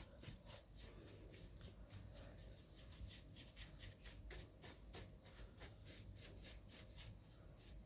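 Faint, quick brush strokes buffing black shoe polish into a car's steering wheel, a steady scrubbing of several strokes a second.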